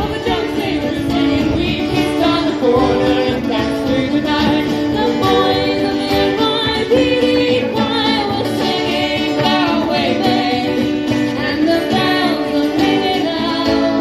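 A live band playing a song: singing over instrumental backing, heard through the stage speakers.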